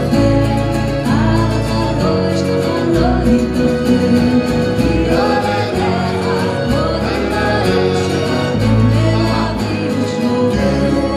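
A woman singing a Hebrew song into a microphone, backed by acoustic guitars and a keyboard through a PA system.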